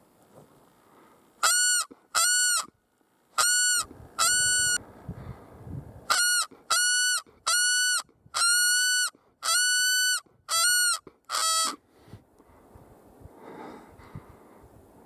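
Predator call blown in eleven short wailing notes, in two groups over about ten seconds. Each note swells and then drops slightly in pitch, and the last is lower. It is a distress call sounded to draw a black bear in.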